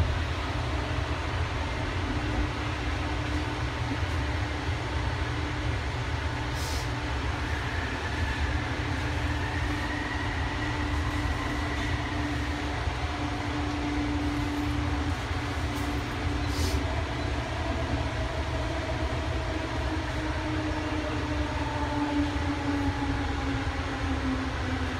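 JFK AirTrain, a driverless Bombardier linear-induction-motor train, running on its elevated guideway, heard from inside the car: a steady low rumble with a motor whine. The whine falls in pitch over the last few seconds as the train slows into a station. There are two sharp clicks partway through.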